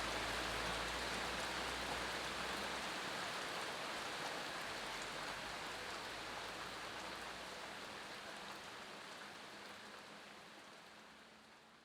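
Steady rainfall, fading out gradually and ending near the end.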